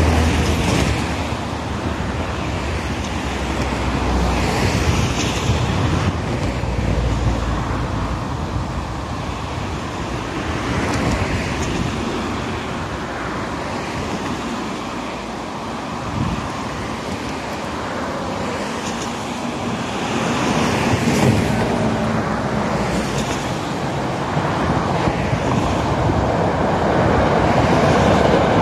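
Steady outdoor background noise with wind buffeting the microphone in low gusts, mostly in the first seconds. Near the end the rumble of an approaching 205-series electric train starts to build.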